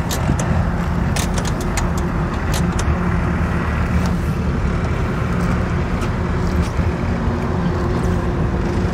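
A 125 cc single-cylinder motorcycle engine idling steadily in neutral, with a few light clicks in the first three seconds.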